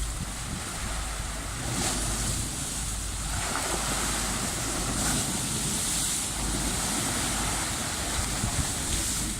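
Sea waves surging and washing in, with wind buffeting the microphone; the wash swells about two seconds in.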